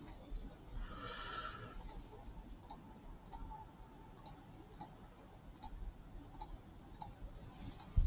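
About ten light clicks of a computer mouse, irregularly spaced about half a second apart, faint over low background noise.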